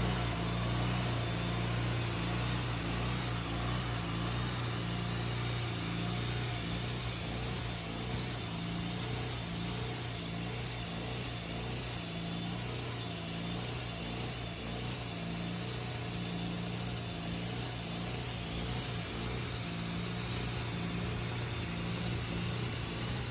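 Portable sawmill running steadily under load, its engine humming while the blade saws through a cherry log.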